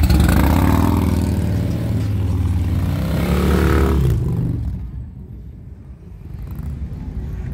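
Touring motorcycle engine revving loudly close by as the bike pulls away, rising in pitch as it accelerates, then fading out about four and a half seconds in.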